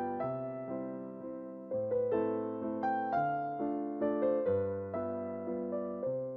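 Background music: a soft piano piece playing gentle chords and a melody, with notes struck about every half second that ring and fade.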